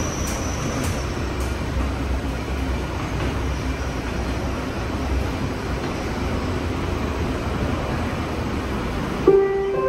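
Airport tram car heard from inside while running: a steady rumble with rolling noise. Near the end a chime tone sounds, the kind that comes before an onboard announcement.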